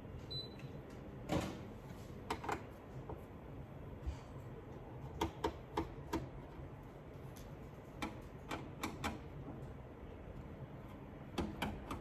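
Irregular short clicks and taps, singly and in small clusters, as the top-cover screws of a rackmount NAS chassis are taken out.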